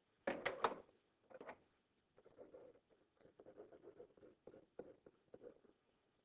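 Faint scratching and tapping of a stylus writing an equation by hand on a touch surface, in short strokes, with a louder cluster of taps about half a second in.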